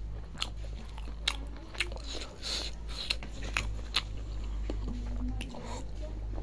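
Close-miked chewing of a hand-fed mouthful of rice and curry, with wet mouth clicks and smacks.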